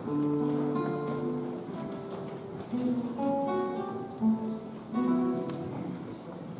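Acoustic guitar playing a slow melody of plucked single notes and chords.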